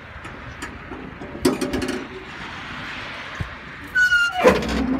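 Steel tailgate of a tipping farm trailer being unlatched and swung open: metal clanks and rattles about a second and a half in, then near the end a loud squeal from the hinges that falls in pitch, with more clanking.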